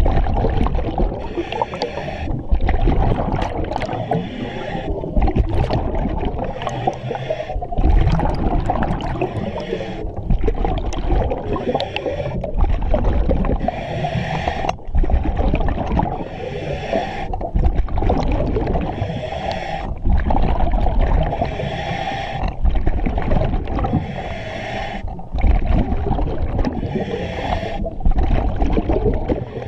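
Scuba diver breathing through a Kirby Morgan EXO-26 full-face mask regulator underwater: hissing and bubbling in a steady rhythm, a breath about every two and a half seconds, over a constant low rumble of bubbles.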